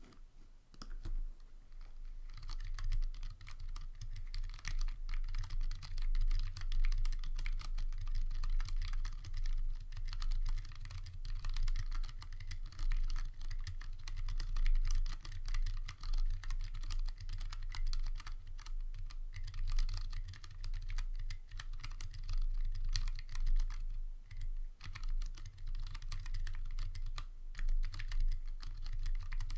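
Fast, continuous typing on a Planck 40% ortholinear mechanical keyboard with Cherry MX Clear tactile switches and blank DSA-profile keycaps. The keystrokes come in a dense stream of clacks, starting about a second in, with a few brief pauses.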